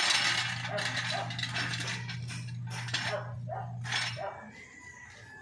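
Metal hydraulic floor jack clinking and rattling as it is moved into place and its handle worked, a string of short irregular metallic clicks. A steady low hum runs underneath and stops about four seconds in.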